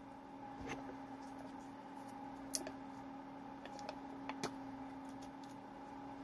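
A Yoplait yogurt cup being handled and its foil lid peeled open, making scattered light clicks and crinkles, the sharpest about two and a half seconds in and again about four and a half seconds in. A steady low hum runs underneath.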